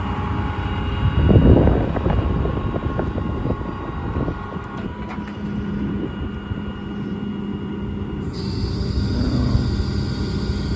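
Truck's 6.7 Cummins diesel running to power the hydraulics while the IMT service crane is worked, a steady hum with a louder surge about a second and a half in.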